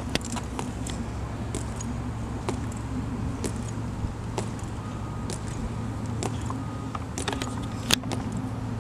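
Soldiers marching in step across a stone plaza, their metal-tapped heels clicking about once a second, with one louder click near the end, over a steady low background rumble.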